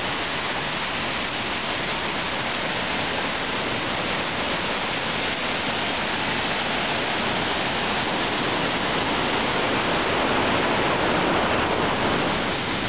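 Waterfall pouring close by: a steady roar of rushing white water, swelling slightly near the end.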